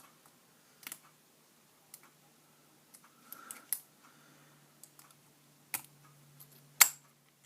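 Lock-picking tools working in the keyway of a Master Lock padlock: scattered sharp metallic clicks and light scraping as the pins are raked and set, the loudest click near the end.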